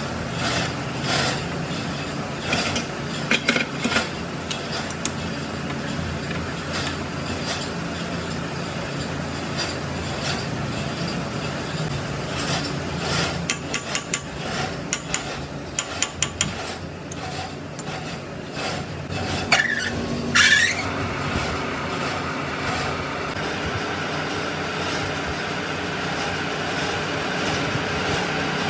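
Scattered sharp metal taps and clinks from work on an iron hook, over a steady background rumble. A brief squeal comes about twenty seconds in.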